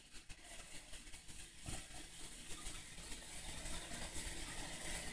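Two cats eating tuna from bowls: faint, irregular chewing and smacking clicks.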